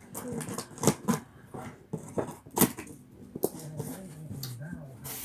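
Cardboard shipping box being opened and its contents handled: a string of sharp clicks, snaps and rustles of cardboard and packing. A low wavering sound lasts about a second near the end.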